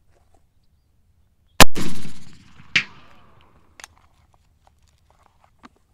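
A single black-powder shot from a muzzleloading Lorenz rifle-musket: one loud crack that rolls away over nearly a second. About a second later comes a second, sharper crack, followed by a few faint clicks.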